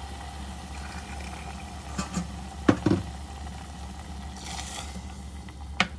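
A pot of chicken feet in soy-based sauce sizzling and bubbling on the stove, the sauce cooked down nearly dry. Several sharp clacks of a utensil against the pot come around two to three seconds in and again near the end, with a brief hiss just before the last clack.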